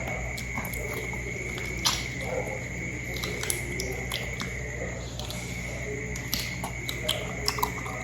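Close-up eating sounds of someone chewing dog's feet: wet mouth smacks and sharp clicks, a few seconds apart and then several close together near the end, over a steady high whine and a low hum.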